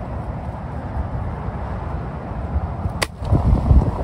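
A PCP air rifle fires a single sharp shot about three seconds in, over a steady low rumble.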